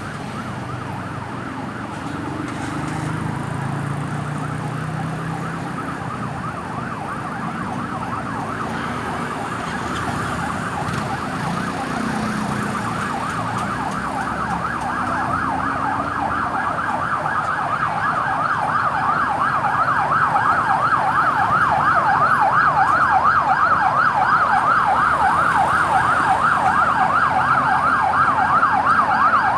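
Ambulance siren on a fast yelp, a rapid rising-and-falling wail several times a second, growing steadily louder as the vehicle approaches.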